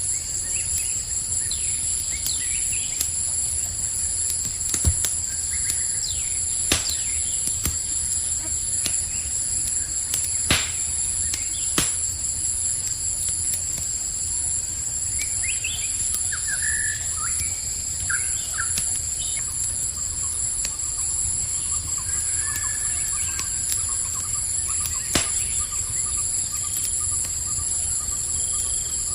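A campfire crackles with a low rumble and a handful of sharp pops, over a steady, high-pitched cricket chorus. A few short bird chirps come about halfway through.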